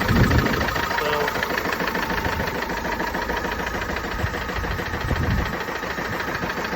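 Renault Master's 2.5 dCi four-cylinder turbodiesel engine idling steadily. It runs with a misfire that has developed while the van was parked up, which the owner thinks could be a sensor.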